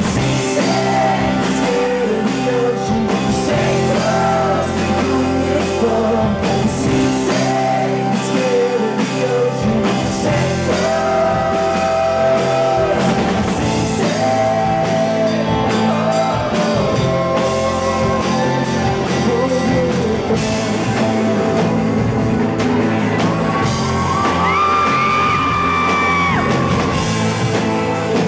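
Rock band playing live: a male voice singing over electric guitars and a drum kit, heard from the audience in a club hall. A long held note comes near the end.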